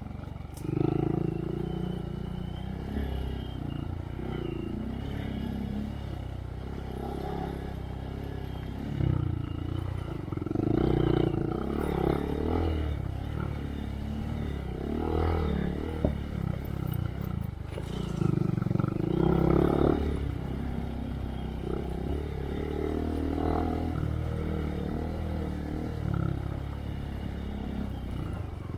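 Honda Monkey's 125 cc single-cylinder engine through a Yoshimura RS3 slip-on exhaust, running under varying throttle on a trail ride, getting louder as it is revved several times.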